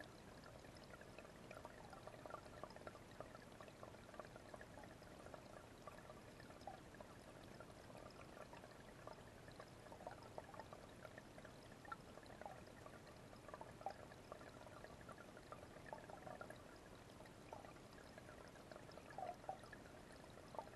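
Small waterfall splashing and trickling into a fish pond, faint and steady, with many little splashes and drips throughout.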